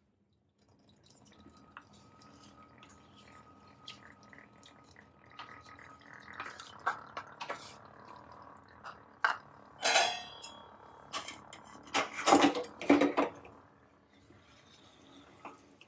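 Jaggery syrup poured into a steel pot of steamed rice-semolina mixture, then stirred with a wooden spatula. Soft pouring and scraping are broken by sharp knocks of spatula and utensils against the pot, loudest about ten seconds in and again around twelve to thirteen seconds.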